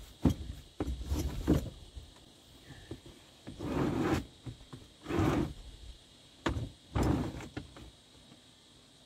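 Irregular knocks, thumps and scrapes of a piece of wood and fittings being handled and shifted into place, in short bursts separated by quiet gaps.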